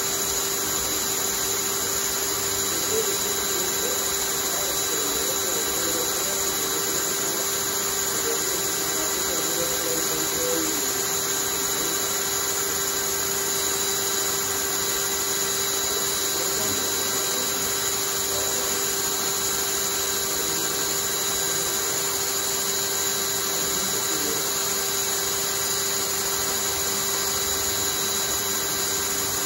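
Cordless drill running at a constant speed, spinning a homemade wooden centrifuge rotor: an even whirr with one steady tone that holds its pitch throughout.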